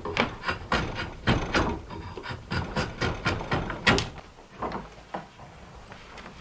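A long file rasping the end of a dogwood branch clamped in a bench vise, shaping it down to fit as a tool handle, with repeated back-and-forth strokes about two or three a second. The strokes stop about four seconds in, and softer knocks and handling follow.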